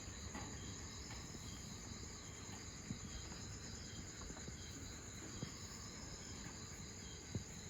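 Insects chirring: a steady high trill with a fainter, regularly repeated chirp under it, and a few soft taps.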